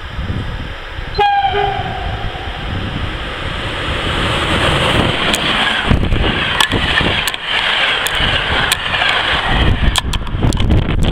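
Electric locomotive-hauled passenger train running through a station. The locomotive gives one short horn blast about a second in, then a rumble builds as the coaches pass, with repeated sharp wheel clicks over the rail joints.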